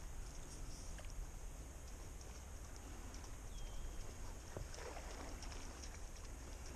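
Faint water sounds around a paddle board: light lapping with a few small ticks and a short splash about five seconds in.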